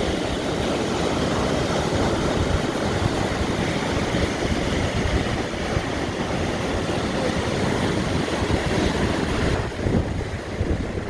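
Lake Superior surf breaking on the shore, heard under strong wind buffeting the microphone with a gusty rumble.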